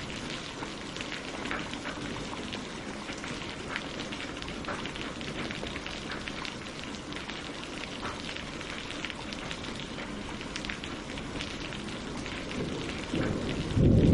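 Steady rain falling on leaves and lake water, a dense patter of drops. Near the end a much louder, deep rumble rises sharply.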